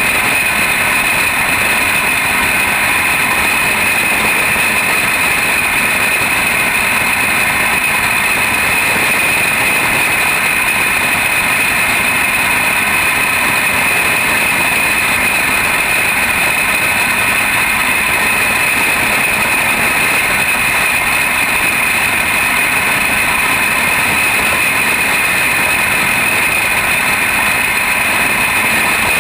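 Jr. champ kart's engine running at racing speed, heard from on board the kart, loud and steady without breaks.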